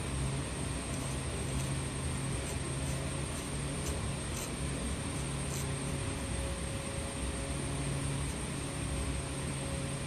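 Steady droning background hum that runs unchanged. Over it, faint light scratches of a metal nib scraping lines into a scratchboard, a dozen or so short strokes in the first half.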